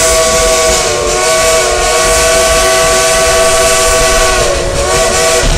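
Steam whistle of Dollywood Express locomotive No. 192, a Baldwin 2-8-2, blowing one long blast that sounds several notes at once. The pitch sags briefly about a second in and again near the end, over the rushing noise of the moving train.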